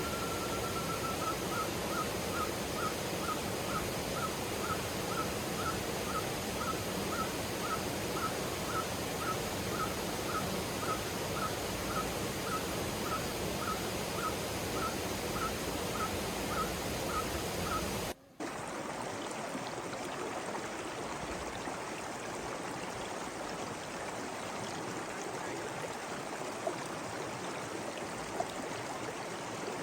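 An animal calling a single short clear note over and over, about twice a second, above the steady rush of running water. The calls stop abruptly at a cut about two-thirds of the way through, and after it only the running water continues.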